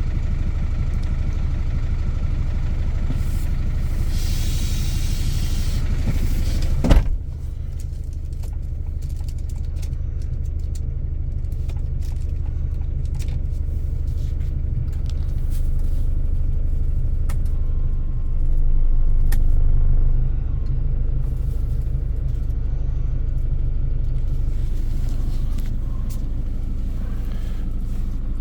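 Truck engine running steadily with a low rumble. A hiss rises about four seconds in, and a single sharp thump comes about seven seconds in.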